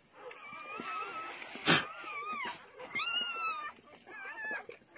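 A dog's high-pitched whining cries, about four of them, each bending up and then down. A sharp knock about a third of the way in is the loudest sound.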